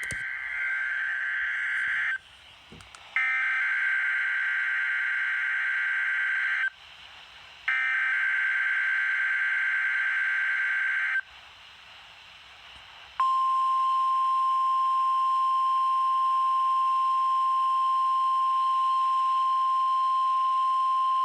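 NOAA Weather Radio test signal. First come three bursts of shrill, warbling SAME digital header data: the tail of one burst, then two more separated by short pauses. About 13 seconds in, the 1050 Hz warning alarm tone starts and holds steady for about nine seconds. This is the Required Weekly Test of the station's alerting signal.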